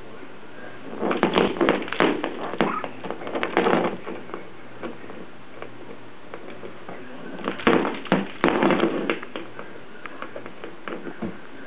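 Two bursts of sharp taps and knocks in quick succession, one starting about a second in and lasting a few seconds, the other about seven and a half seconds in.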